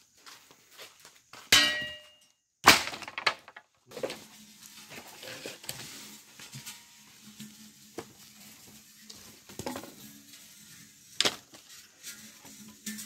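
Firewood planks and logs being dropped and knocked together on the ground, several loud wooden clatters and thunks, one with a short metallic clang and ring.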